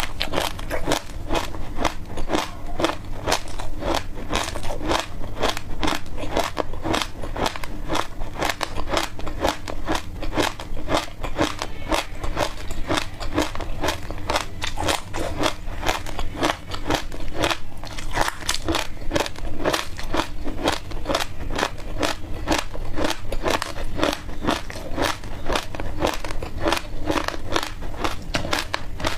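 Close-miked chewing of dry passion fruit seeds: a steady stream of small crunches and crackles, several a second without a break.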